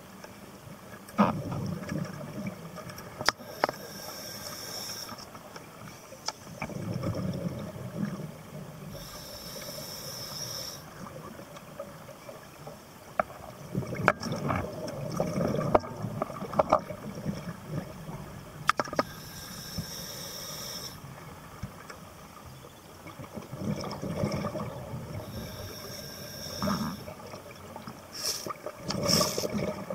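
Scuba diver breathing through a regulator underwater: a hiss on each inhale, then a rumble of exhaled bubbles, repeating about every five to six seconds, with a few sharp clicks between breaths.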